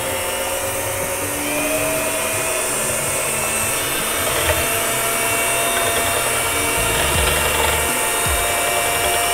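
Electric hand mixer running steadily, whipping heavy cream. Its motor whine steps up a little in pitch and loudness about a second and a half in.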